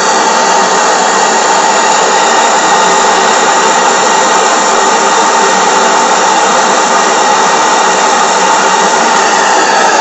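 PMR8 double-acting V-twin oscillating model steam engine running steadily on steam from its boiler, giving a loud, continuous hissing buzz in which no separate exhaust beats stand out.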